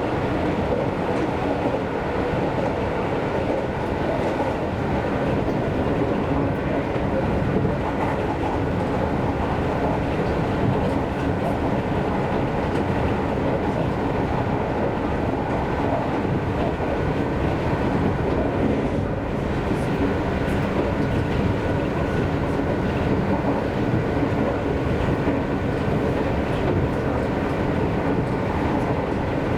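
Seibu Railway electric commuter train running at speed, heard from inside the car: a steady rumble of wheels on rails with a faint steady whine above it.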